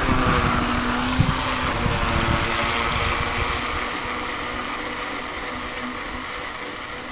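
Electric motor of a Tornado RC 9.6-volt toy boat running at speed with a steady whine, over the hiss of its hull cutting the water. It fades as the boat runs off.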